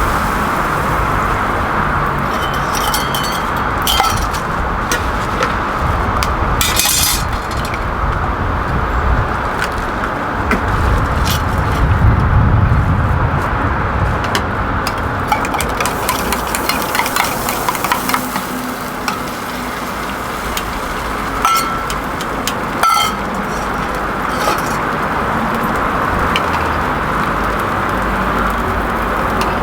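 Busy street ambience: road traffic passing, one vehicle rumbling by about halfway through, with scattered sharp clinks and clicks of metal and glass.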